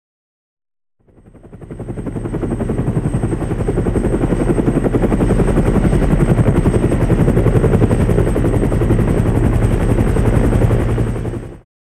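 Helicopter rotor beating in a fast, even pulse with a thin high whine over it. It fades in and grows louder over the first few seconds, holds steady, then stops abruptly near the end.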